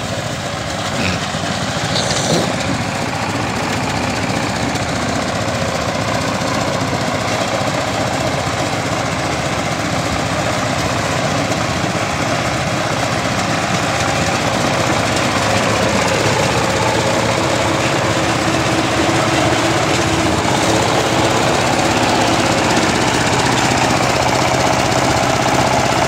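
Small tractor engine and the tractor-drawn pick-up straw baler running together without a break as they work through the stubble.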